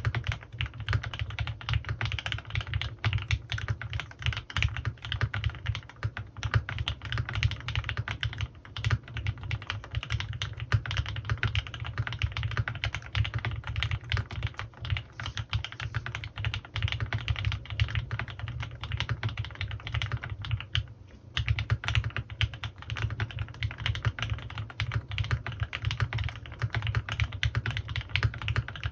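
Fast, continuous typing on a CannonKeys Rekt1800 custom mechanical keyboard with lubed Gateron Ink Black V2 linear switches and PBT keycaps: a dense run of keystrokes, pausing briefly about 21 seconds in.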